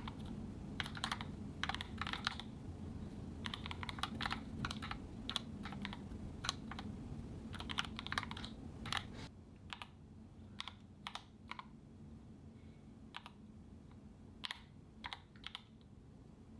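Mechanical keyboard keys clacking in quick runs as strings of digits are typed on the number row and the number pad. About nine seconds in, the dense typing thins to scattered single keystrokes.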